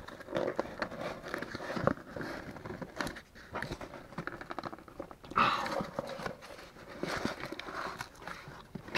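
Hands handling and prying at a cardboard box, with scattered scrapes and taps of cardboard and a louder scraping rustle about five seconds in.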